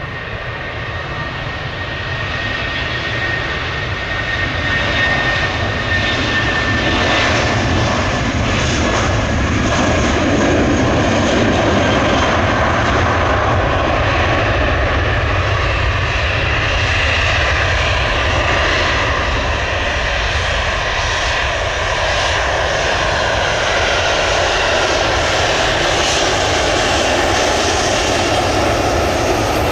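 Jet airliner engines running loud, swelling over the first few seconds and then holding steady, with a high whine that sinks a little in pitch early on.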